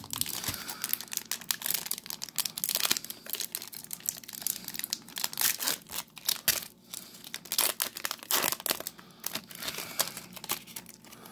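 Crinkly plastic wrapper of a baseball card pack being torn open and crumpled by hand, with a long run of irregular crackles.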